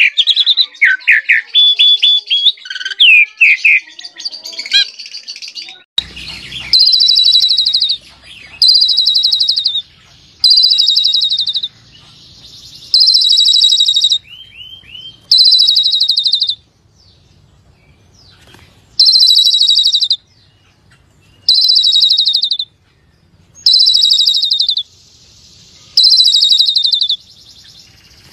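Asian pied myna (jalak suren) singing vigorously. At first it gives a quick run of varied whistled notes. After an abrupt change about six seconds in, it repeats a rattling, slightly falling phrase about every two seconds, with short rising chirps between some of them.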